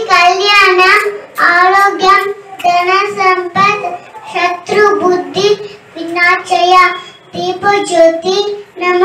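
A young girl singing alone into a handheld microphone, in short sung phrases of about a second each with brief breaks between them.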